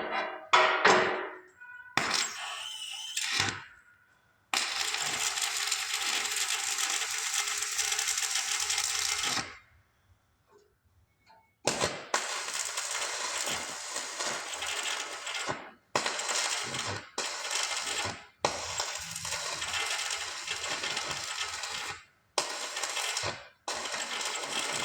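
Electric arc welding: the arc crackles and sizzles in runs of a few seconds each, starting and stopping abruptly. A couple of sharp metal knocks come just before the first run.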